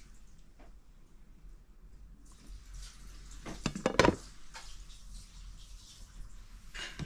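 Tableware being handled: a short cluster of knocks and clatters about four seconds in, as a clear plastic food cover over a plate is touched, with lighter knocks before it and one more near the end.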